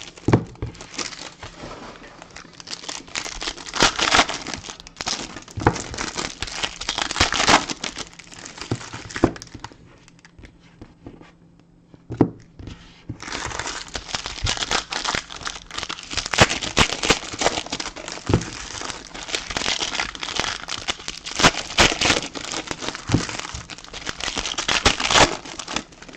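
Wrapping crinkling and tearing as a sealed trading-card box is unwrapped and opened, in irregular crackles with a quieter lull about ten seconds in.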